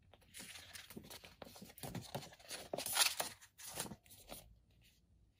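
Paper instruction booklet rustling and crinkling as it is closed and turned over in the hands: a run of uneven paper strokes, loudest about three seconds in, dying away near the end.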